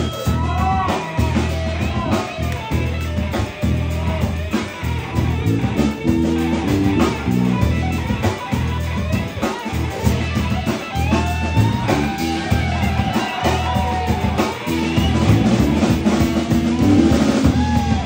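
Live rock band: an electric guitar playing a lead solo with bent notes, over bass and drums.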